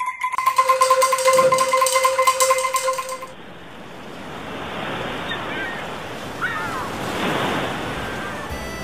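Bamboo angklung shaken with a fast rattle, holding a high note that a lower note joins, until both stop abruptly about three seconds in. Then ocean surf washes in, swelling, with a couple of faint bird cries.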